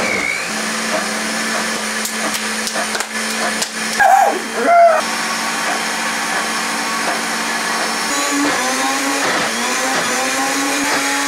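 Countertop blender motor running steadily, churning a thick mix of fried chicken, biscuit, potato wedges and cola. Its hum steps up slightly in pitch about eight seconds in. A brief shout comes about four seconds in.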